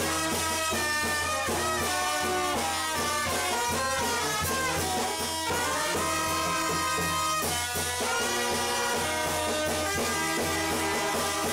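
Live brass band of trombones and trumpets playing a tune with drums keeping time, with a falling glide of the horns about halfway through.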